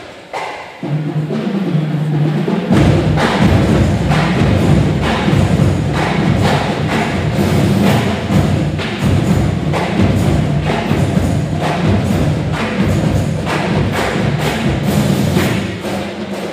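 Music with a heavy drum beat, about two strikes a second. It begins with low held notes about a second in, and the drums come in loudly about three seconds in.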